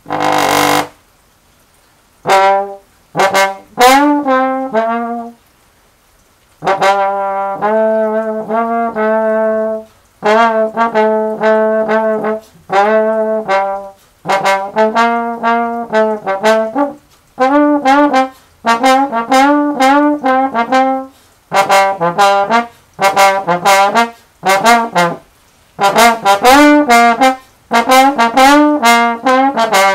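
Slide trombone played solo: a melody of held and moving notes in short phrases, with brief pauses between phrases.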